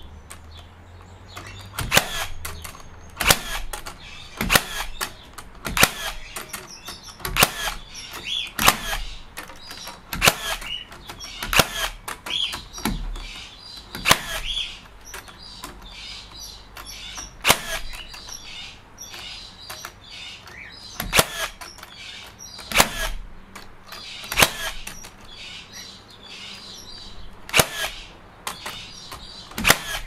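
HiKOKI NR3665DA 36V cordless metal connector nailer firing nails one after another through a steel connector plate into timber, a sharp crack about every second and a half, around twenty shots in all.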